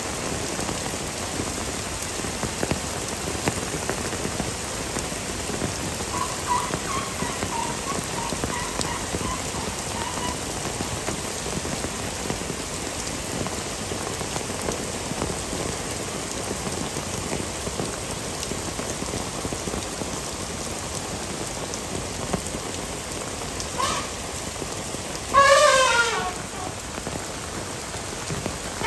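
Heavy rain pouring down steadily on surfaces. Near the end a brief, loud animal call with a falling pitch rises over the rain.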